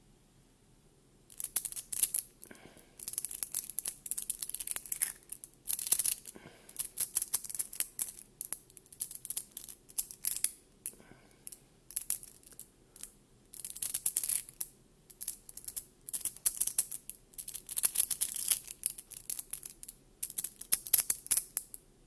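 Small neodymium magnetic balls clicking and crackling against each other as a clump of them is squeezed and worked in the fingers. It comes in bursts of rapid clicks, starting about a second in.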